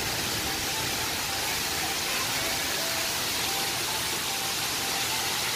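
Steady rushing hiss of water pouring down the rock face of a large man-made waterfall.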